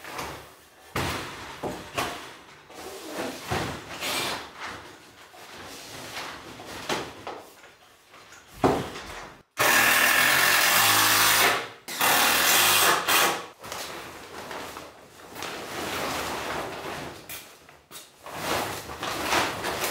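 Plastic tarp rustling and crinkling as it is handled and pulled over a wooden frame. About halfway through, a power drill runs twice, each time for a second or two, driving screws through the tarp into the wood.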